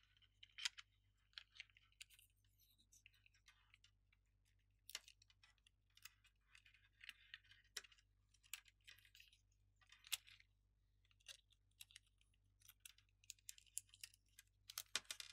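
Faint scattered small clicks and light rustling of hands handling the plastic panels of a small robot kit chassis while working a nut free from the tape it has stuck to.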